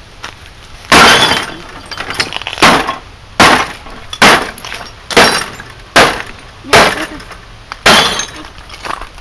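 A wrecked Bosch CRT television being smashed with hammer blows, its plastic casing and glass cracking and breaking. There are eight heavy strikes, about one a second, starting about a second in.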